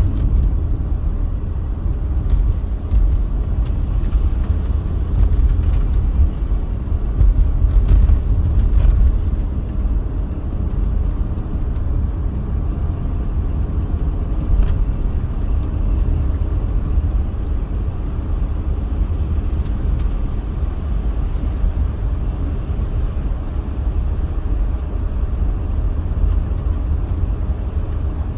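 A car being driven, heard as a steady low rumble of road and engine noise.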